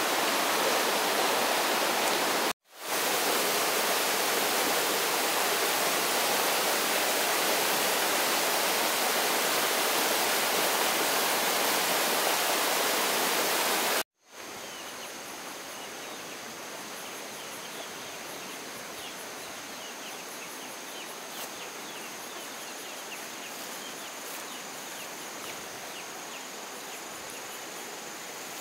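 Steady rushing of water, as from a stream or small waterfall. About halfway through it cuts away to a quieter insect chorus: a steady high-pitched trill with faint ticking.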